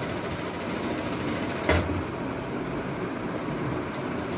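Sewing machine running steadily, stitching a dart into blouse fabric, with one short knock a little under two seconds in.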